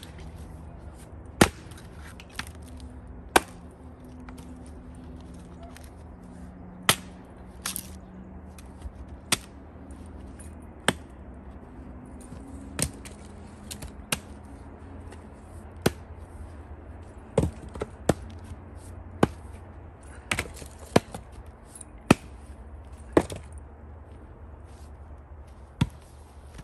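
An axe chopping into firewood: about twenty sharp blows, irregularly spaced a second or two apart, some followed quickly by a second knock.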